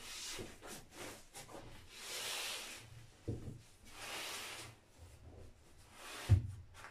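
Bamboo laundry hamper being shifted into place on a tiled floor: three scraping rubs and two thumps, the louder thump near the end.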